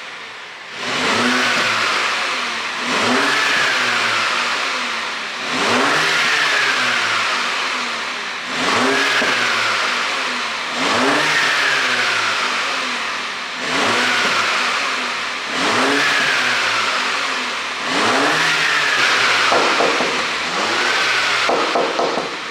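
2016 BMW F56 Mini Cooper S turbocharged four-cylinder blipped repeatedly, about eight revs each rising then falling back, roughly every two and a half seconds. A pop-and-crackle tune makes the exhaust crackle on the overrun, plainest near the end.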